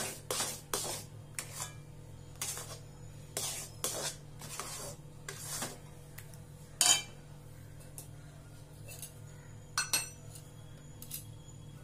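A metal spatula scrapes and knocks against a metal kadai as thick moong dal halwa, its sugar just melting in, is stirred. Repeated strokes come one or two a second, with a sharper clink about seven seconds in and again near ten seconds.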